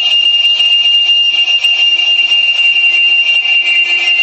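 Liquid nitrogen boiling off and jetting from the fill fitting of a telescope's cooled detector dewar as it is filled. It makes a loud, steady hiss with a high whistle held on one pitch. Liquid spilling out like this is the sign that the dewar is full.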